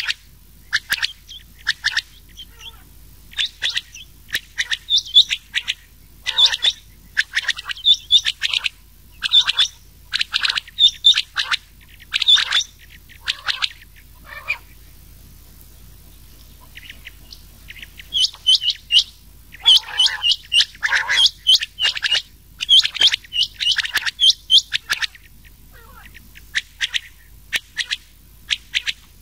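Recorded quail calls, rain quail mixed with another quail's calls, as used as a hunting lure. They come as rapid bouts of short, sharp, repeated notes, with a pause of a few seconds about halfway.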